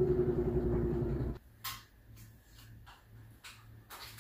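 Power drill driving a screw into the top of a Smith machine frame, its motor running steadily and slowing slightly under load, then stopping abruptly about a second and a half in. A few light clicks of handling follow.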